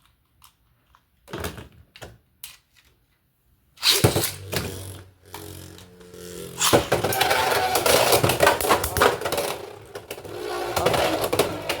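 Beyblade X tops launched into a plastic stadium about four seconds in, then spinning, scraping and clashing with dense rapid clicking. Before the launch there are a few light plastic clicks.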